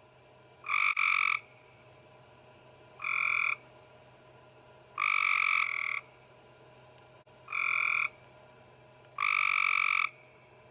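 A frog calling: five short, loud calls, each under a second long and repeated about every two seconds.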